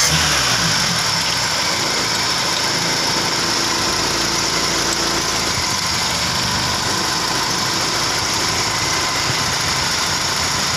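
Honda Grand Civic's carbureted four-cylinder engine idling steadily while the ignition distributor is turned to set the timing. The carburettor's broken mounting ear has been clamped, and with the repair the engine holds its idle.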